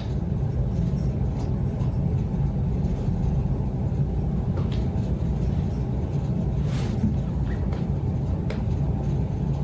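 Steady low rumble of background noise, with a few faint taps and a brief rustle about seven seconds in as the iMac's screen is handled and lowered into place.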